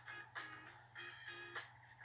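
Quiet, upbeat background music with plucked strings playing short, rhythmic notes.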